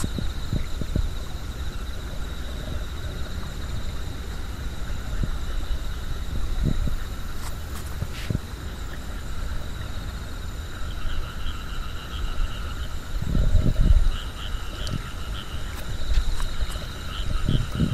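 A chorus of night insects trilling steadily, with a second, pulsing chirp joining about eleven seconds in. Low rumbles on the microphone come and go, once in the middle of the stretch and again near the end.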